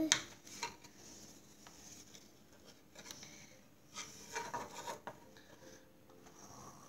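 Pipe cleaner rubbing and scraping through the holes of a wooden lacing board, with a sharp click at the start and scattered light taps and rustles.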